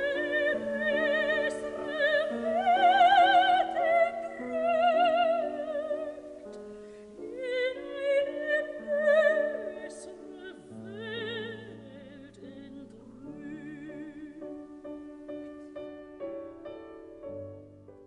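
Classical music: an operatic voice sings long notes with a strong vibrato over held chords. The music grows quieter in the second half.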